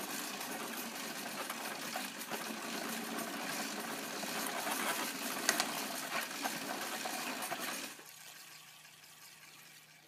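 Exercise bike wheel being pedalled, spinning a homemade permanent-magnet alternator built from a ceiling fan that is held against it: a steady whirring noise that drops off sharply about eight seconds in and then fades as the wheel winds down.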